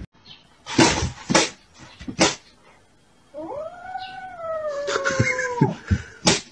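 A kitten gives one long, drawn-out meow, about two seconds, rising at first and then slowly falling. It is preceded by three short bursts of noise in the first couple of seconds.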